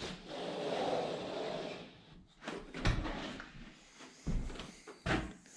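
Scraping or sliding for about two seconds, then four short, sharp knocks, like a door fitting being handled and tapped into place.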